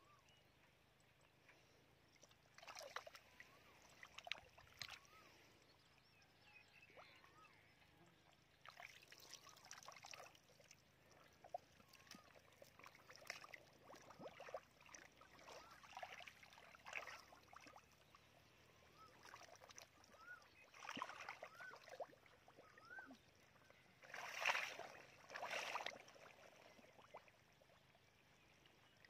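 Muddy water sloshing and splashing in irregular bursts as a person wades and gropes by hand through a shallow muddy pool, loudest near the end.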